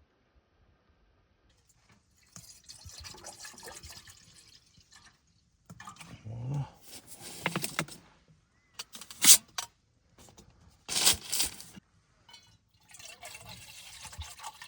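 Liquid being poured into a pot in several spells, with two louder, sharp clatters about nine and eleven seconds in.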